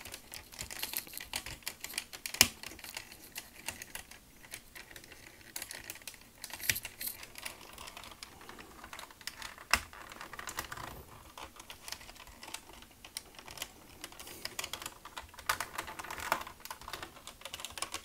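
Hard plastic parts of a Zeta Toys ZA-05 Racket transforming figure clicking, tapping and rattling under the fingers, with a few sharper snaps at irregular intervals. A tab is being pushed and worked because it will not peg in.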